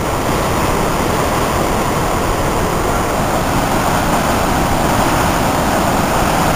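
Floodwater pouring through the open spillway gates of Gavins Point Dam on the Missouri River: a loud, steady rush of churning white water. All 14 floodgates are open, releasing a record flow of about 160,000 cubic feet per second.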